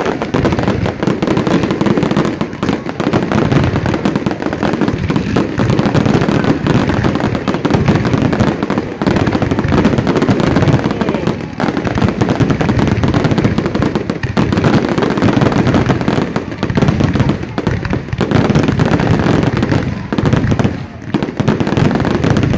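Aerial fireworks going off in a dense, continuous barrage of booming shell bursts and crackling, with only brief lulls.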